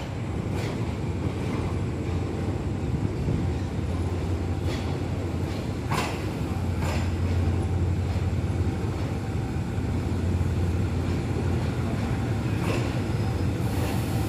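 GEK diesel-electric locomotive engine running with a steady low drone, while railway coaches roll slowly over the station tracks, giving a few brief metallic clanks.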